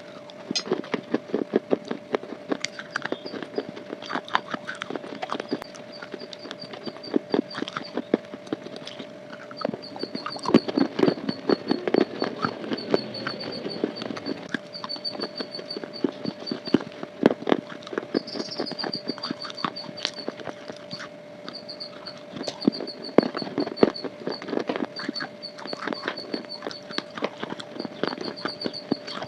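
Crunching and chewing from big bites of a crunchy bar, a fast irregular run of crisp crunches edited for loudness. A steady hum and faint high pulsing tones sit underneath.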